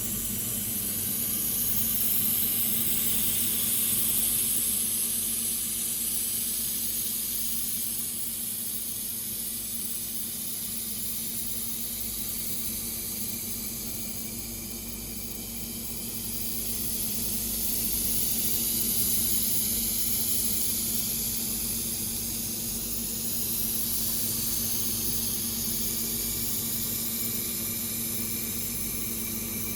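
Automatic laser welding machine running: a steady hum with a high hiss that swells and eases off several times.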